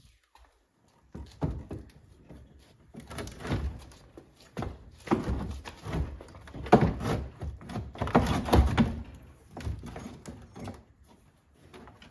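Irregular clunks and knocks of a car battery being handled and set into place, with short pauses between the strokes and the loudest ones in the middle.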